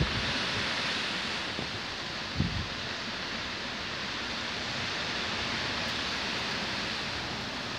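Strong wind blowing through the leafy crowns of trees, a steady rustling hiss of leaves, with one brief low buffet of wind on the microphone about two and a half seconds in.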